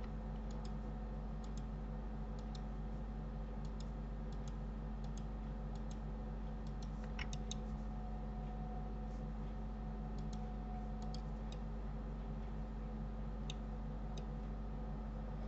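Scattered clicks of a computer mouse and keyboard, a few at a time with gaps between, a small cluster about halfway through, over a steady low electrical hum.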